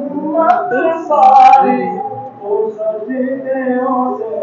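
A man singing devotional verses into a microphone, in a melodic chant with long held notes.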